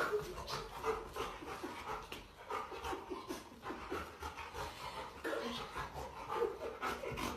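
A dog panting rapidly in short, quick breaths.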